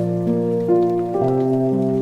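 Background music: sustained keyboard chords shifting to new notes every half second or so, over a faint rain-like patter.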